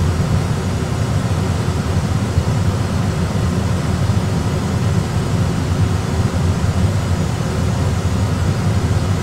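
Steady low rumble of Airbus A320 cockpit background noise, engines and airflow during the approach, holding even throughout.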